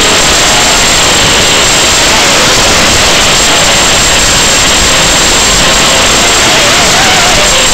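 Loud, steady static hiss on the audio of an analog FPV video link, with a faint wavering tone underneath.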